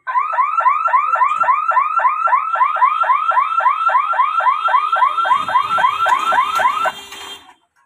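Level-crossing warning hooter sounding an electronic warble of about four rising chirps a second while the boom barrier moves, warning that the gate is operating. A low hum joins in about five seconds in, and the warble cuts off suddenly about seven seconds in.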